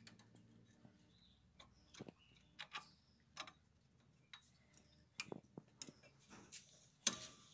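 Faint, irregular metallic clicks and taps as the brake pad retaining spring is fitted onto a Renault Duster's front disc brake caliper. The loudest click comes near the end.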